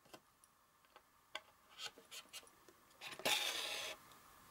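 Thread pulled through holes pierced in a paper card, heard as a rustle lasting just under a second about three seconds in, after a few faint ticks of the needle and card being handled.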